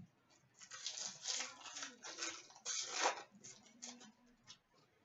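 A foil hockey card pack wrapper being torn open and crinkled, in a run of short, irregular rustles.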